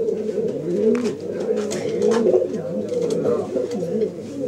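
Several pigeons cooing at once, their rising-and-falling coos overlapping without pause, with a few light clicks among them.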